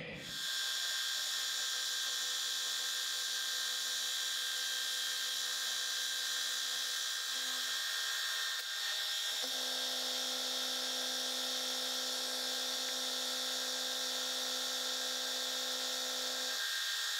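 Vertical milling machine running with its end mill cutting a small metal part: a steady machine whine over a high hiss, with a brief dip about nine seconds in before it carries on.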